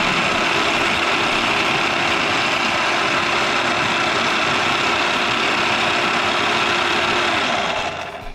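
Small electric food chopper running steadily, its motor whirring as the blades chop tomato chunks, then spinning down about seven seconds in when the top button is released.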